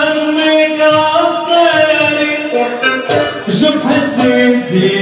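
Male singer performing an Arabic song live, holding long notes over the music.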